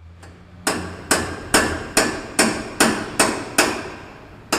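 Hammer blows struck at an even pace of about two a second, each with a short ring, with a short pause before the last blow. A low hum sounds under the first second.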